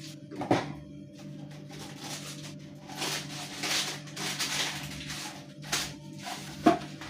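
Soft background music with a steady low hum. Over it come rustling and a few sharp knocks and clinks as kitchen things are handled, the loudest knock near the end.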